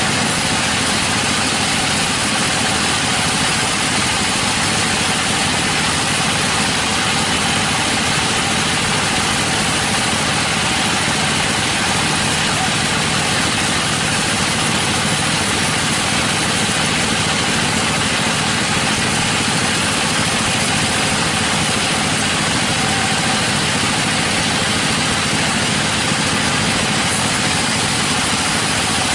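Sawmill machinery running steadily, a constant even mechanical noise with a few faint steady tones in it.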